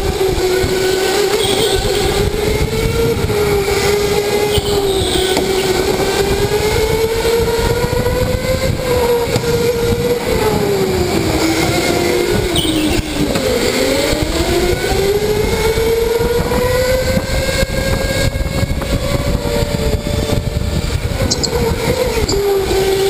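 Electric go-kart motor whining under the rush of tyres and wind. Its pitch sags and rises with speed, dropping lowest about 13 seconds in as the kart slows for a corner, then climbing as it accelerates out.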